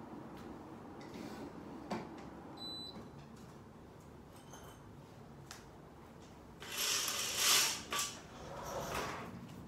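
A curtain being drawn open along its rail: two loud scraping slides of the hooks along the track, about seven seconds in and again shortly after, after a few faint clicks in a quiet room.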